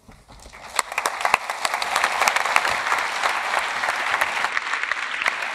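Audience applauding. Scattered claps begin about half a second in and swell into full, steady applause by about two seconds in.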